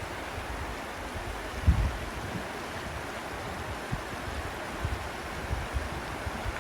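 Steady rush of running water from a stream or river, with a few low thuds of wind on the microphone, the strongest about two seconds in.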